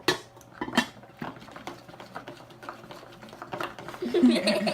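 Spoons stirring a wet glue-and-lotion slime mixture in bowls: scattered clinks and scrapes of spoon against bowl, with two sharper knocks in the first second.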